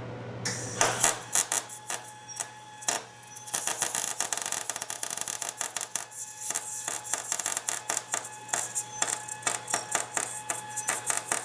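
Electric welding arc crackling as a steel piece is welded onto a broken bolt stub. It comes in short stuttering bursts at first, then crackles steadily from about three and a half seconds in, over a steady low hum.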